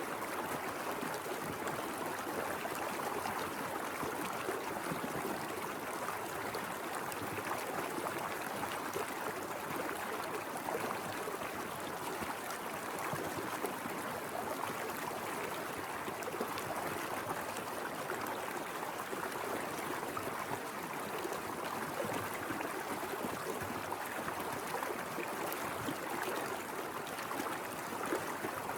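Small mountain river flowing over rocks: a steady, even rush of water with a light gurgle.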